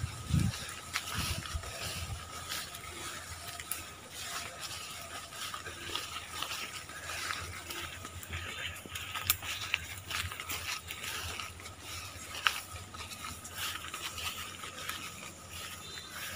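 Footsteps rustling and crunching through grass and undergrowth on a walk along an overgrown path, with scattered sharp clicks and ticks over a faint steady high hum.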